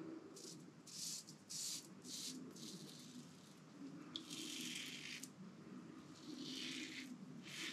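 Mercur 37C slant-bar safety razor scraping through lathered stubble on the first pass of a wet shave: faint, a run of short quick strokes followed by a few longer ones.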